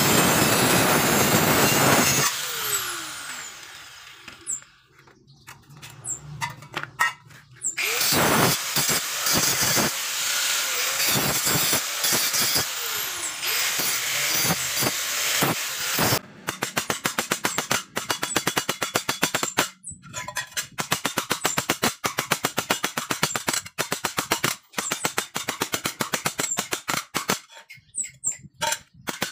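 Handheld angle grinder cutting through galvanized steel box section; about two seconds in the cut ends and the disc winds down with a falling whine. The grinder runs again on a steel plate in the middle, and the last half is a quick run of sharp hammer blows on steel.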